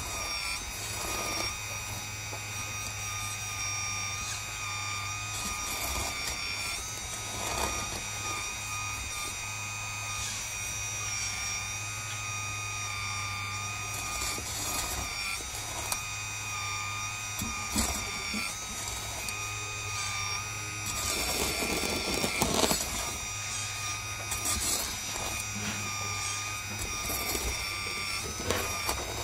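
RC hydraulic excavator's pump running with a steady whine while the bucket digs, scraping and clattering in dirt and rocks at irregular moments. A louder stretch of scraping and crunching comes about three quarters of the way through.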